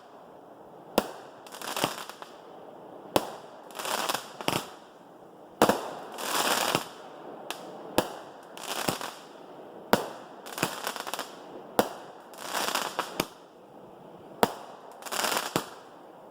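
Consumer fireworks firing in steady succession: a sharp bang about every second, each followed by a crackling burst of under a second.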